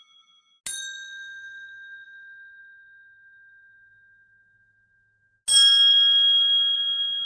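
A hotel desk-style service bell is struck twice, each a single ding that rings on and slowly fades. The first is a lower-pitched ding under a second in, dying away over about four seconds. The second is louder and brighter, about five and a half seconds in, and is still ringing at the end.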